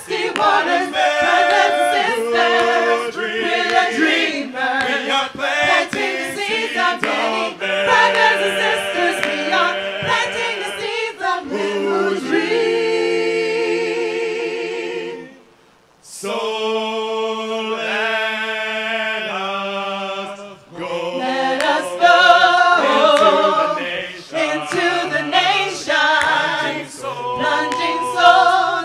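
A group of voices singing a worship song a cappella, breaking off briefly about halfway through before going on.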